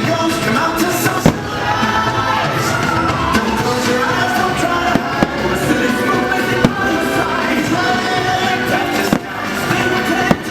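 Fireworks show with its music soundtrack playing loudly, and several sharp firework bangs going off over the music.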